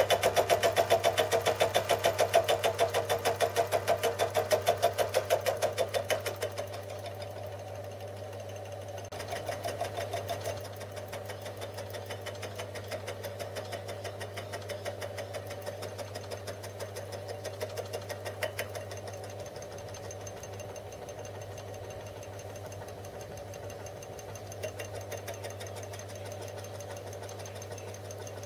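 Small metal lathe running with an out-of-balance aluminium casting in the chuck, giving a fast, even pulse with each turn over a steady motor hum; the pulsing is the vibration from the unbalanced workpiece. It is louder for about the first six seconds, then drops to a quieter run.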